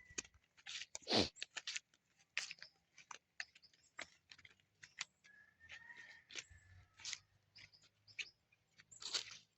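Pig crunching and chewing snacks: a run of short, irregular crisp crunches and clicks.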